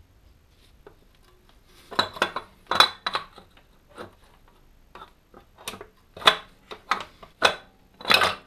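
Metal engine parts and tools clinking and knocking against each other by hand while the water pump housing is worked free of a Land Rover TD5 engine. The clinks are irregular, a dozen or so with a short ring, and start about two seconds in.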